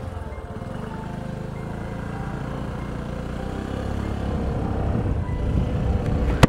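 A motor vehicle's engine running on the move, a low steady hum that grows louder over the last couple of seconds. A single sharp click near the very end.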